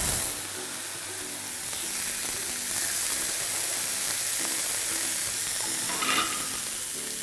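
Masala-coated fish slices sizzling steadily in coconut oil on a hot flat iron griddle (tawa) as they are laid down to shallow-fry.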